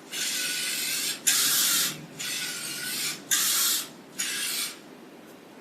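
Servo-motor voltage stabilizer correcting: the servo-driven carbon brushes slide over the variable-transformer windings as the input voltage is varied, giving five short bursts of scraping hiss. The bursts stop about four and a half seconds in.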